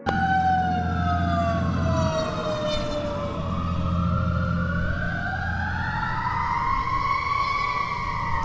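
Emergency-vehicle siren wailing in slow glides. Two tones fall over several seconds, then rise and cross each other, over a steady low rumble.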